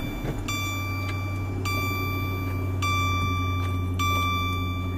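Chrysler 300C SRT8's HEMI V8 idling steadily just after a push-button start, heard from inside the cabin. Over the idle, a dashboard warning chime repeats about once a second.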